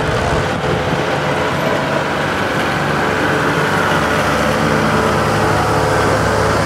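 Engines running steadily at an antique tractor pull: the Allis-Chalmers C tractor and the pulling sled at idle, a steady drone that grows a little louder in the second half.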